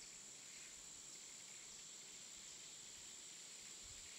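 Faint steady hiss with a thin, unbroken high-pitched tone over it.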